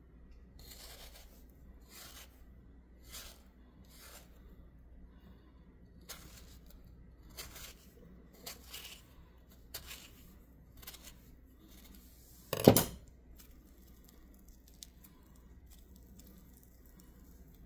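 Kitchen knife scoring a ripe mango cheek into a grid, the blade slicing through the soft flesh to the skin in a dozen or so short strokes, about one a second. About two-thirds through comes one much louder, sharp knock.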